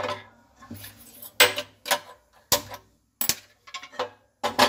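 Aluminium pressure cooker clanking on a gas stove's pan support as it is set down and shifted into place, mixed with the clicks of the burner being lit: a string of irregular sharp clicks and metal knocks.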